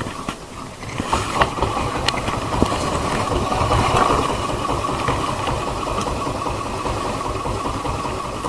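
A boat engine running steadily, with a low rumble and a few scattered knocks.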